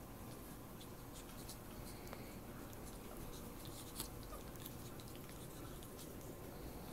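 Two ferrets wrestling on a bed: faint rustling and scuffling on the bedding, with scattered small clicks and one sharper click about four seconds in.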